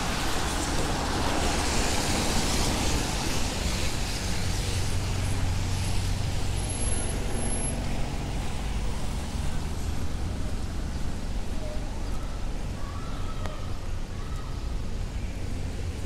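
Steady city street traffic in the rain: a low rumble of passing cars and trucks with the hiss of tyres on wet pavement.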